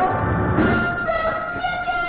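Orchestral music with long held notes, brass to the fore, and a low bass swell in the first second.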